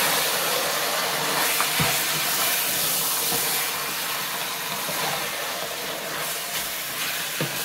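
Beef goulash with onions and tomato paste sizzling over full heat, a steady hiss, with a few light knocks of a wooden spoon against the steel pot as it is stirred.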